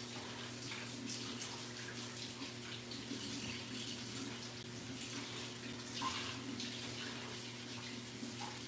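Kitchen tap running into a sink while dishes are washed, a steady rush of water with scattered light splashes and clinks, one a little louder about six seconds in.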